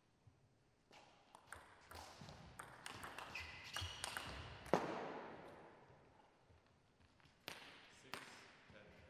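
Table tennis rally: quick clicks of the celluloid ball off bats and table, with shoe squeaks on the court floor. It ends in one loud hit about five seconds in that wins the point, followed by voices and noise in the hall fading over a couple of seconds, then two single ball clicks near the end.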